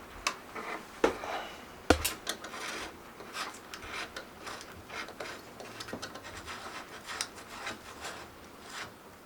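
Gusset S2 flat pedals being threaded onto a mountain bike's crank arms: small metal rubbing and scraping noises, with scattered sharp clicks, the two loudest about one and two seconds in.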